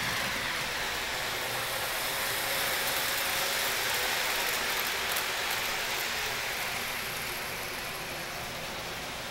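O-scale model train running on three-rail track: a steady whirr of wheels and motor that slowly fades.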